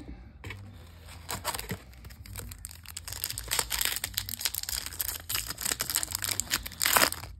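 Silver foil wrapper of a Topps baseball card pack crinkling and tearing as it is ripped open and peeled back, in a dense run of crackles that grows busier and is loudest near the end.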